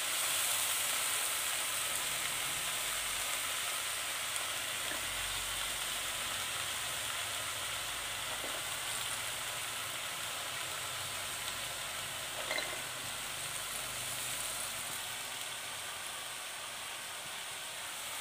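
Ridge gourd cubes frying in oil in an iron kadai: a steady sizzling hiss with a few small clicks.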